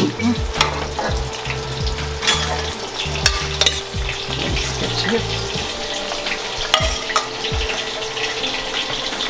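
Hot cooking oil sizzling and crackling steadily in a frying pan, with scattered sharp pops.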